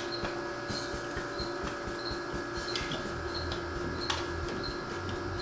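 A few sharp metallic clicks and knocks as a pliers-type filter wrench grips and works a spin-on oil filter canister loose, over a steady hum.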